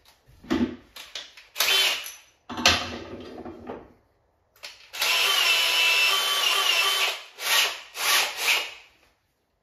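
Cordless drill run in several short bursts, with one steady whining run of about two seconds in the middle, driving screws to fasten an upper kitchen cabinet to the wall.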